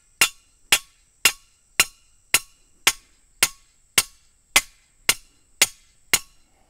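Small sledgehammer striking the top of a steel T-post, driving it into the ground: an even series of sharp metallic clanks, about two a second, each ringing briefly. The strikes stop shortly before the end.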